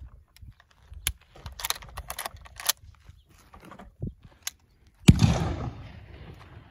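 A few metallic clicks as the rifle is handled and readied, then, about five seconds in, a single loud shot from an original Model 1867 Spencer rifle firing a .56-50 black-powder cartridge, its report ringing out and fading over about a second and a half.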